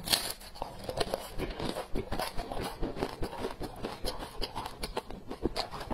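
Close-miked bite into a flaky pastry cake, then chewing it: a steady run of small, sharp crunches and crackles as the crisp layers break.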